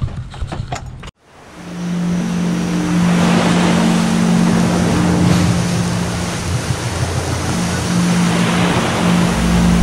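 Ocean surf washing onto a sandy beach, fading in about a second in, with a steady low drone underneath.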